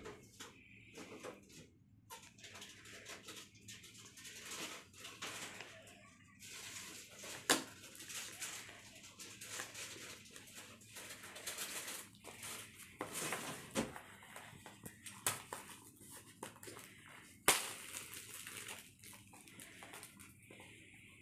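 A utility knife scraping and cutting at the edge of a cardboard smartphone box, with rustling handling noise and several sharp clicks and taps; the sharpest come about a third of the way in and again near the end.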